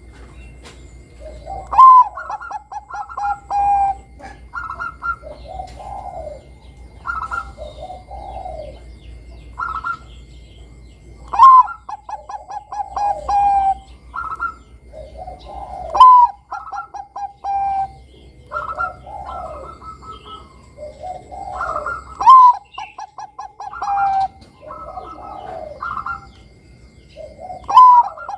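Zebra dove (perkutut, Bangkok strain) singing its cooing song. Five phrases, each opening on a loud note and breaking into a rapid stuttering run that trails off, with softer coos between them.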